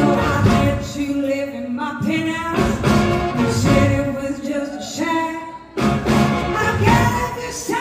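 Live blues-rock band playing, with a woman singing lead over electric guitars, held notes wavering. There is a short break in the music about six seconds in.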